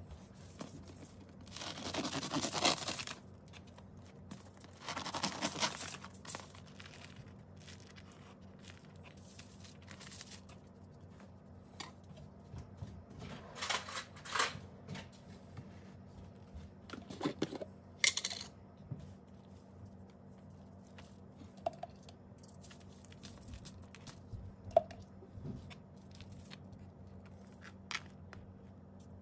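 Kitchen handling sounds: several short bursts of aluminium foil crinkling and rustling, and a knife scraping a spread across the cut face of a crusty baguette, with a few light clicks.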